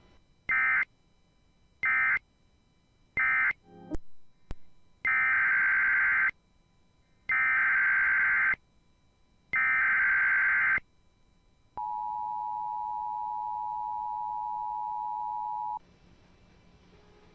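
Emergency Alert System (SAME) digital data bursts. Three short warbling end-of-message bursts close the previous alert, then three longer header bursts announce a new alert. These are followed by the EAS two-tone attention signal, a steady dual tone of about 853 and 960 Hz held for about four seconds.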